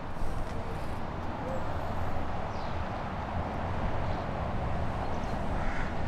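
Outdoor street sound: a steady rumble of road traffic that swells and fades over the middle few seconds.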